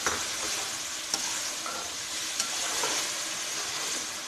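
Mash daal (urad lentils) sizzling in hot oil and freshly added boiling water while a metal slotted spatula stirs it round the pot, with a few sharp clicks of the spatula against the metal.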